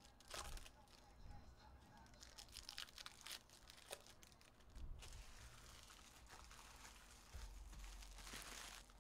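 Faint crinkling and rustling of foil trading-card pack wrappers and cards being handled: many small sharp crackles in the first half, then a steadier rustle.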